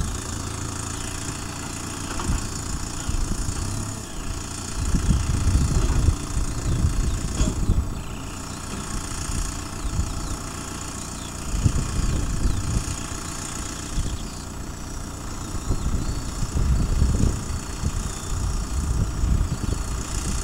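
Tractor engine running steadily, driving a Metal Fach front-loading bale wrapper as it wraps a round bale. Wind buffets the microphone in irregular gusts of low rumble.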